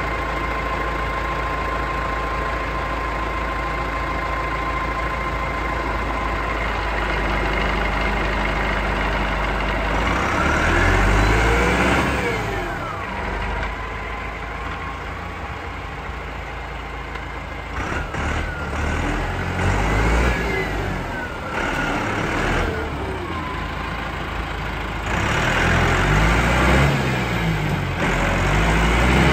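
Massey Ferguson 6150 tractor's Perkins diesel engine idling steadily, then revved up and down several times from about a third of the way in. Near the end the tractor pulls away under power.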